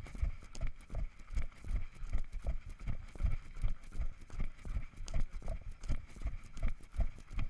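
Running footsteps on a gravel track, a steady rhythm of low thuds with some crunch, heard close through a body-worn camera that jolts with each stride.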